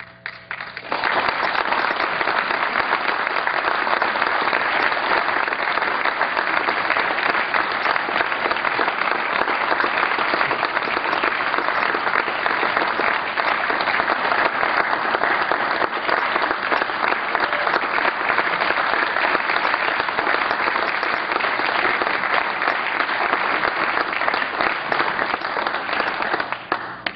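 An audience applauding steadily, starting abruptly about a second in and stopping just before the end.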